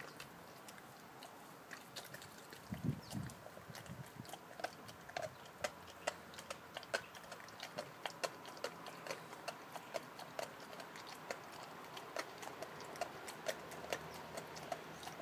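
A Rottweiler chewing and crunching a large raw beef bone: an irregular run of sharp cracks and clicks, about two or three a second. A few dull thuds come about three seconds in.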